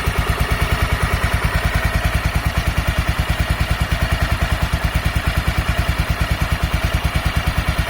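Honda NX250 Dominator's single-cylinder engine idling steadily, with an even beat of about eleven pulses a second. The owner believes the tensioner was the cause of its earlier engine noise and takes it as now solved.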